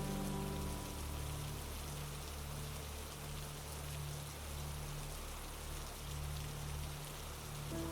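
Steady rain falling in an even hiss, over a low hum that wavers on and off.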